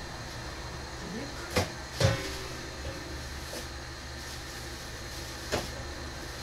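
Kitchen knocks: three sharp knocks of things being handled and shut, two close together about one and a half to two seconds in and one near the end, over a steady low hum.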